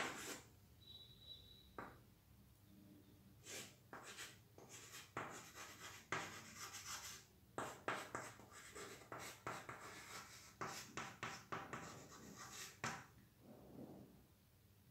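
Chalk writing on a chalkboard: a run of short, faint, scratchy strokes with brief pauses between them, starting a few seconds in and stopping near the end.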